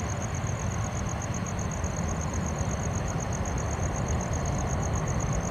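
Steady low rumble of jet airliner engines idling or taxiing, even throughout, with a thin high-pitched pulsing trill, about nine pulses a second, running under it.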